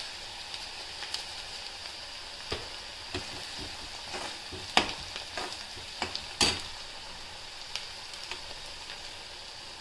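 Chopped onions sizzling in hot oil in a metal kadhai, with a few sharp clinks and scrapes of a metal spoon stirring them against the pan, the loudest about five and six and a half seconds in.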